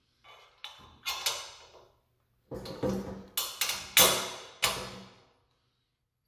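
Steel hitch-tongue plates of a tow-behind lawn aerator and a bolt knocking and clinking together as the bolt is fitted through their holes and the plates are pressed together. A few light knocks in the first second or so are followed by a run of about six sharper knocks, the loudest about four seconds in.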